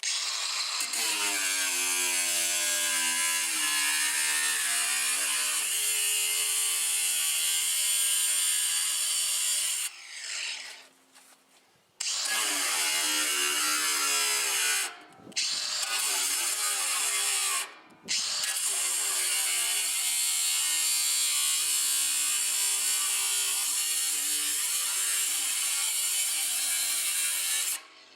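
Ryobi 18V ONE+ cordless 4-1/2 in. angle grinder running and grinding, its motor pitch wavering under the hiss of the disc on the work. It runs for about ten seconds, stops for two, then runs again in three stretches with brief stops in between, the last about ten seconds long.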